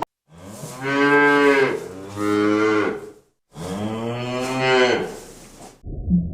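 Cattle mooing: a few long, drawn-out moos, separated by short breaks.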